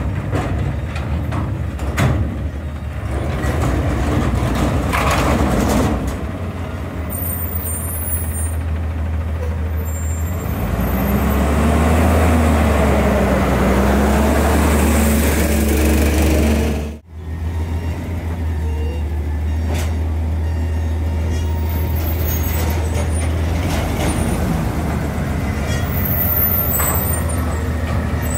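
Autocar Amrep front-loader garbage truck's engine running steadily, revving up for about six seconds in the middle. Brief high squeals of air brakes come a third of the way in and again near the end. The sound drops out for an instant just after the revving.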